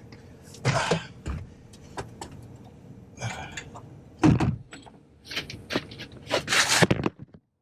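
A run of irregular clunks, scrapes and rattles from handling a Ford Focus ST engine slung on chains, the loudest about four seconds in and near the end.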